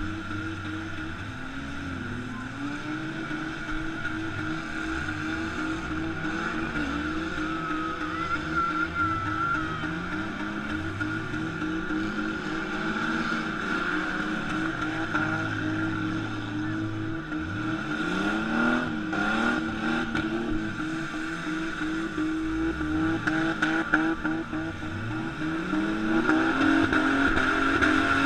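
Demolition derby cars' engines revving up and down over one another, with a steady drone underneath. A few sharp knocks come in the second half, typical of cars ramming each other.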